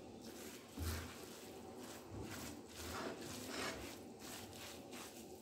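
Wooden spoon stirring a thick filling of grated vegetables, tuna and cheese in a pot: faint, repeated scraping and rustling strokes with a few soft thuds, the loudest about a second in.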